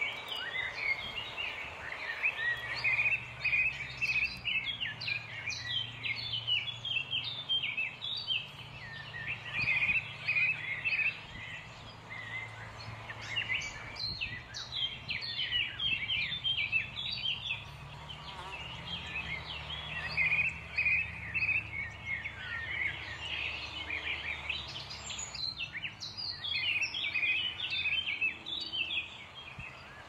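Many birds chirping and calling at once, a dense, continuous chatter of short high chirps, with a faint low hum underneath.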